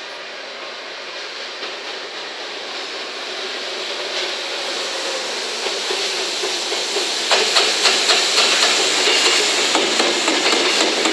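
JR Freight EF210 electric locomotive hauling empty Koki container flatcars, approaching and passing, its noise growing louder. From about seven seconds in, the flatcars' wheels clack rapidly and repeatedly over the rail joints.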